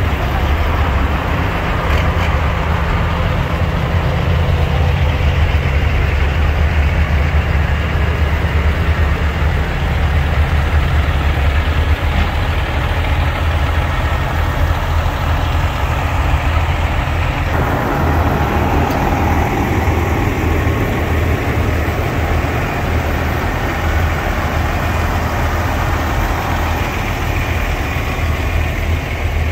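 Big-rig semi truck's diesel engine idling close by, a steady low rumble. The sound changes abruptly about two-thirds of the way through.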